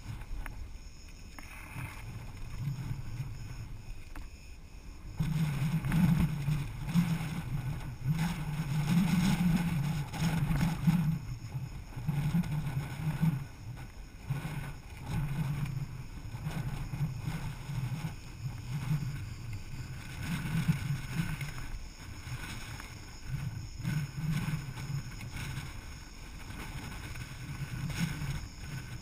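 Strong wind gusting against a tent, the fabric flapping and shaking in irregular surges that grow stronger about five seconds in.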